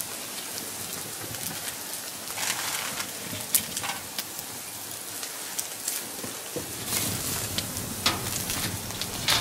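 Meat sizzling on a wire grill over a wood campfire, with the fire crackling in scattered sharp pops.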